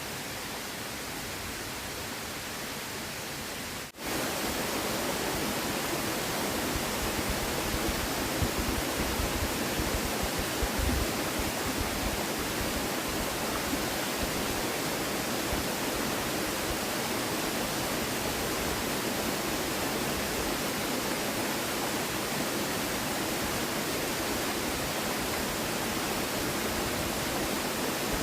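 Steady rushing of a river flowing. About four seconds in there is a brief break, and then the rushing continues slightly louder.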